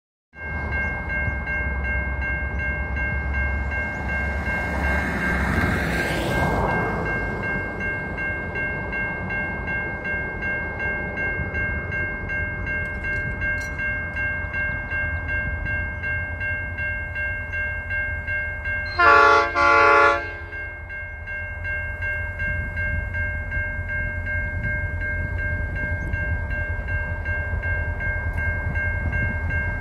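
Diesel locomotive horn of an approaching grain train sounding two short blasts in quick succession about two-thirds of the way in, over a steady low rumble.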